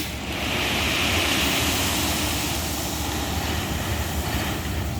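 Dump truck unloading a load of rocks: a steady rushing clatter of rock sliding out of the tipped bed over the truck's running diesel engine, easing off after about three seconds.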